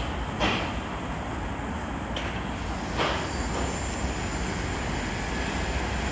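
Steady low rumble of city road traffic, with a few short knocks near the start and about three seconds in.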